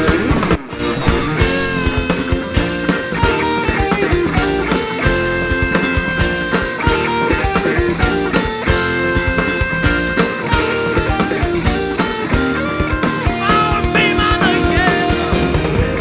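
Rock band playing live, an electric guitar lead holding and bending notes over a drum kit.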